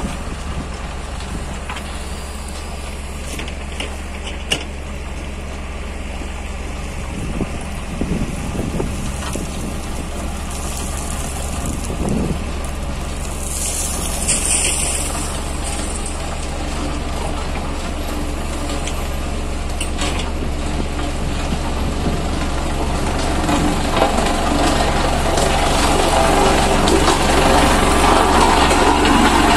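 A single-drum road roller's diesel engine runs as the roller drives toward the microphone over a gravel sub-base, growing louder near the end.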